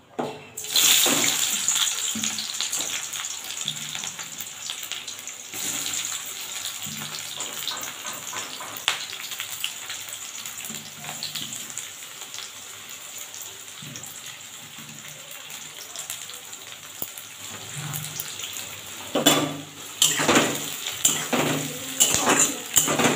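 Sliced onions dropped into hot oil in a steel kadai: a loud sizzle starts suddenly about a second in and slowly dies down. Near the end a spatula scrapes and knocks against the pan as the onions are stirred.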